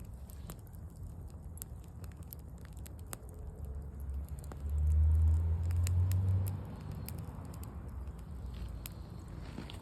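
Campfire crackling, with scattered sharp pops and clicks over a faint hiss. A low rumble swells for about two seconds midway.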